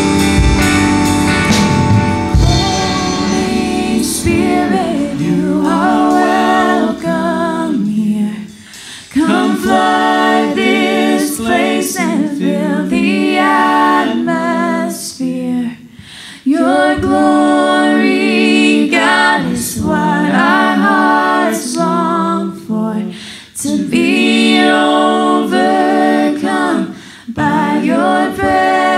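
Church worship band playing with voices, then about seven seconds in the instruments drop out and the worship leaders and congregation sing a cappella, in sung phrases with short breaks between them.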